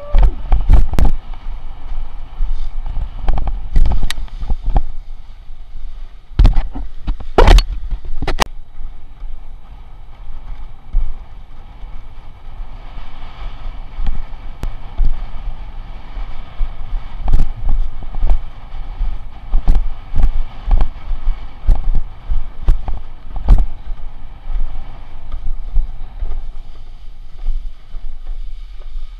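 Wind rumbling on an action camera's microphone and water rushing past a windsurf board sailing at speed through choppy sea, broken by repeated sharp knocks as the board slams on the chop.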